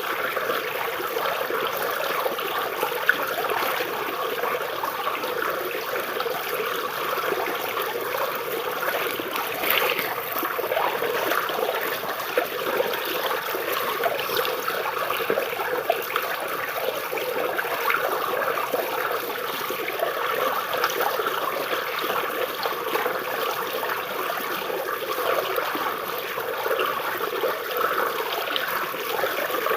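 River water flowing and trickling beneath tree roots: a steady, unbroken gurgle full of small splashes.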